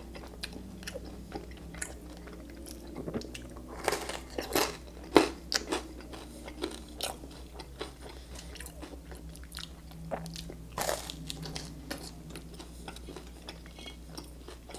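Close-miked biting and chewing of crisp buttered rye toast topped with cheesy canned pasta, with a cluster of sharp crunches in the middle and another about eleven seconds in, and quieter chewing between.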